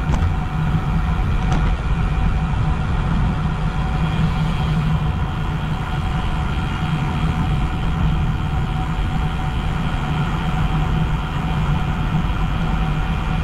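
Wind buffeting an action camera's microphone on a moving bicycle, with tyre noise from the road: a steady, loud low rumble with a faint, even hum over it.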